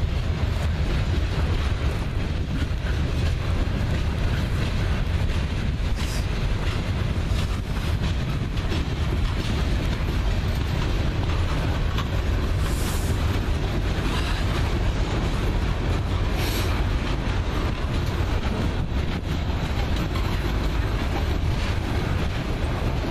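Loaded coal hopper cars of a freight train rolling steadily past, the continuous noise of steel wheels on rail.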